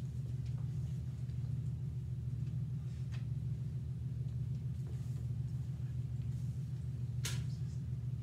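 Steady low hum of room tone, with a few faint clicks and rustles and a sharper click about seven seconds in.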